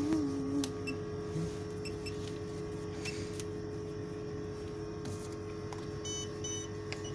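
Steady electrical hum of shop equipment, with two short electronic beeps about six seconds in from the card payment terminal at the checkout.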